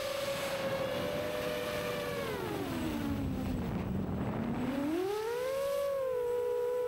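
A 6-inch FPV quadcopter's iFlight Xing brushless motors and propellers whine at a steady pitch. About three seconds in, the pitch sinks as the throttle comes off, then climbs back as the quad is throttled up again.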